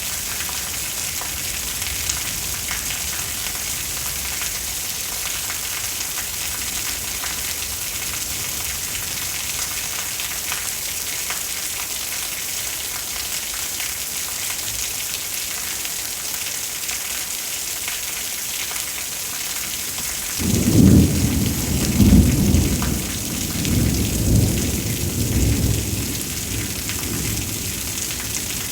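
Steady heavy rain hissing throughout, then about two-thirds of the way in a thunderclap breaks suddenly into a loud low rumble that rolls in several swells for about six seconds before fading back under the rain.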